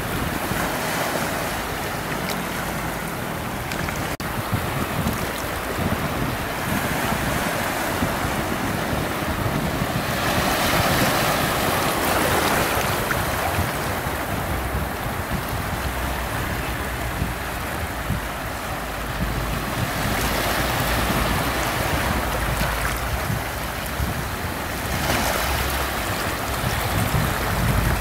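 Shallow sea water washing over a flat rocky shore, with small waves breaking farther out; the wash swells and eases every few seconds. Wind buffets the microphone with a low rumble underneath.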